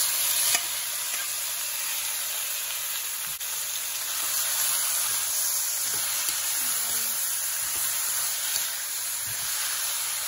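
Marinated pork strips sizzling in hot oil with garlic and onion in a frying pan as they are stirred with a spatula. The sizzle is loudest in the first half-second as the meat lands, then settles to a steady hiss.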